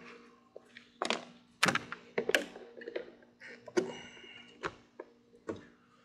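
Plastic clips of a smoked LED mirror-light housing clicking into a Ram 1500 side-mirror cap as it is pressed in by hand: several sharp clicks over a few seconds as the housing seats flush.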